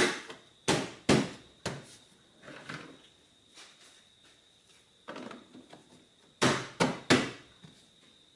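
Plastic tailgate side trim panels being pressed and knocked into place, their clips snapping home: a series of sharp knocks, a few in the first two seconds and three close together near the end, with softer clicks between.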